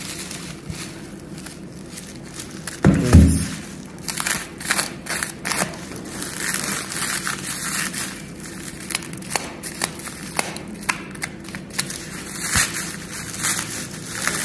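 Plastic bubble wrap crinkling and crackling as it is handled and cut open with a snap-off utility knife, in many short sharp crackles from about four seconds in. A brief, louder low sound comes about three seconds in.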